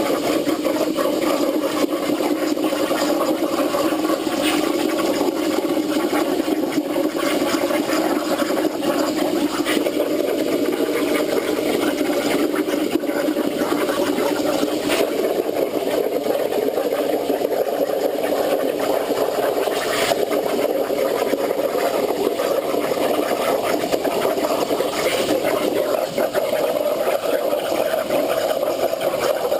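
CNC plasma torch cutting through 3/8-inch hot-rolled steel plate: a steady, loud hissing arc with a buzzy hum under it, unbroken as the torch travels along the cut.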